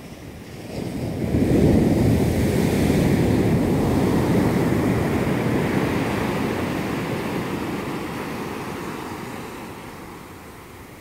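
Indian Ocean surf: a wave breaks and washes up the beach about a second in, then its wash slowly fades away over the following seconds.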